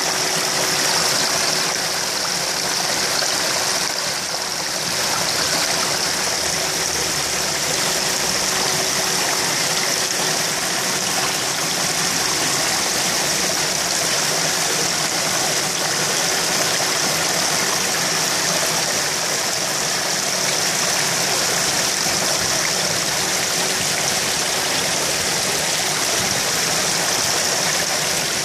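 Aerated koi pond water bubbling and churning at the surface, a steady rushing splash, with a steady hum underneath.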